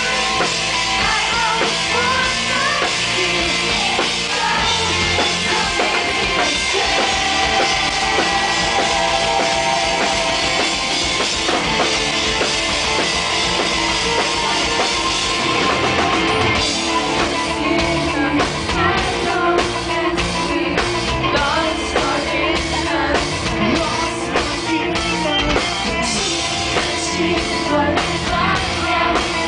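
Live rock band playing loud through a stage PA: female lead vocals over electric guitar and a drum kit. About halfway through, the playing turns choppy, with short regular breaks about twice a second.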